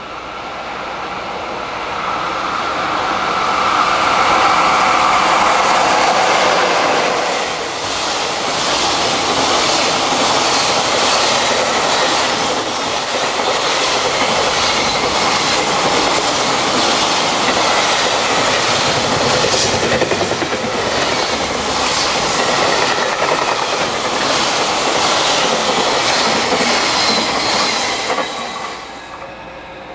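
A JR Freight EF66 electric locomotive comes through at speed, loudest a few seconds in as it passes. A long string of container wagons follows, clattering over the rail joints. The noise drops away sharply near the end as the last wagon goes by.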